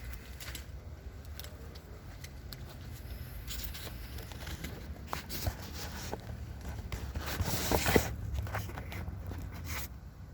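Huina 1494 RC excavator digging: its bucket scrapes and crunches through dirt in irregular strokes over a steady low hum, with the loudest scrape about eight seconds in.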